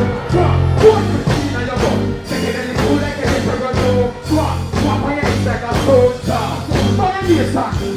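Dancehall music with a steady beat and heavy bass played loud through a stage sound system, with a voice singing over it.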